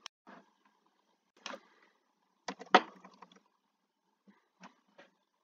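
Computer keyboard keystrokes and mouse clicks: scattered single taps, a quick run of several about three seconds in with the loudest click among them, then a few more single taps near the end.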